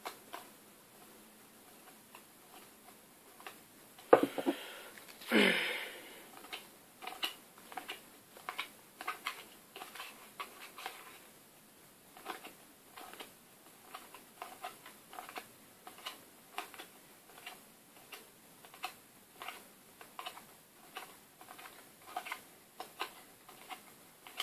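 Match Attax trading cards being flicked through one at a time in the hands, each card giving a short snap or slide, about two a second. Two longer, louder rustles come about four and five and a half seconds in.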